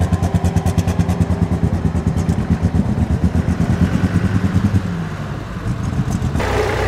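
Super Stock pulling tractor's engine running with a fast, even pulsing beat that fades out about five seconds in. Near the end the sound changes abruptly to a steadier engine hum.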